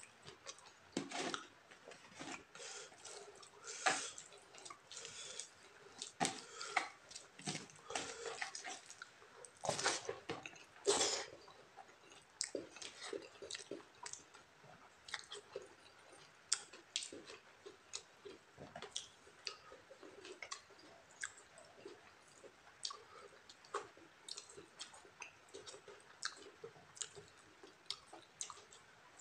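Close-up eating by hand: mouth chewing and lip smacks, with wet squelching of fingers mixing rice into gravy. The sound comes as irregular short clicks and smacks, loudest and most frequent in the first ten seconds or so.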